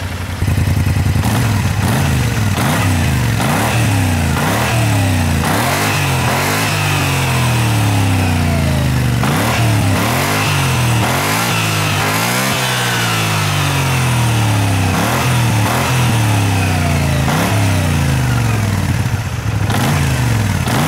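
Kymco AK550i maxi-scooter's 550 cc two-cylinder engine, on its factory exhaust, running on the stand and blipped over and over, the revs rising and falling about once a second.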